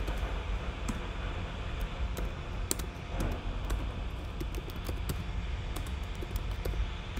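Computer keyboard keys being typed at an irregular, unhurried pace as a web address is entered, each keystroke a short click, over a steady low background hum.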